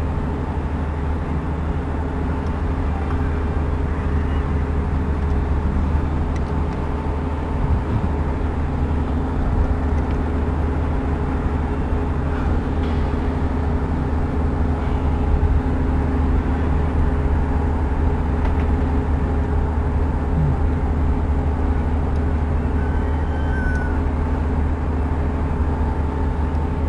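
A steady low mechanical hum and rumble with a few steady tones in it, and a few faint clicks of hands and tools working in the open radar scanner housing.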